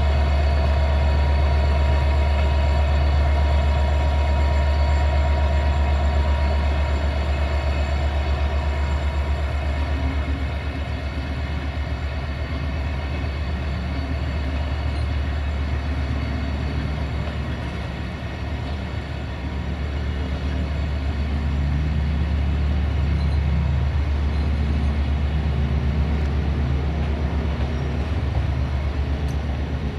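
Railway locomotive running in a station: a steady low hum with a high whine of several tones that fades away over the first ten seconds or so, then an uneven low throb.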